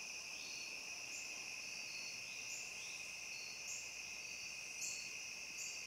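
Steady chorus of crickets and other night insects: a constant high-pitched trill, with short higher chirps repeating at an even pace over it.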